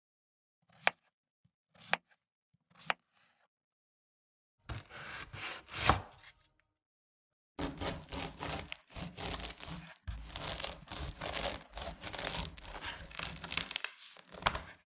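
Kitchen knife cutting food: three single cuts about a second apart, then a longer sawing cut, then a run of rapid cutting and scraping.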